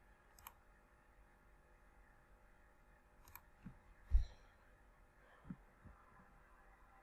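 Two faint, sharp computer mouse-button clicks, then a louder dull thump about four seconds in, followed by a few softer knocks.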